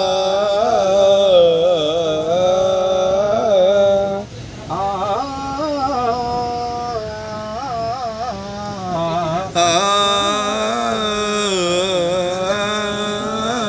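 Indian-style melody with long held notes that waver and bend, in three phrases with short breaks about four and nine seconds in, the last phrase brighter.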